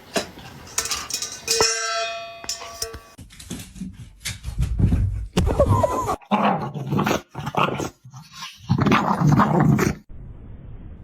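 A dog vocalizing in several separate bouts, its pitch wavering up and down, with a short steady ringing tone about two seconds in.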